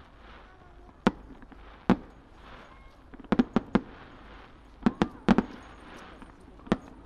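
Star-mine fireworks shells bursting, with about ten sharp bangs at irregular intervals. Several come in quick clusters of two to four.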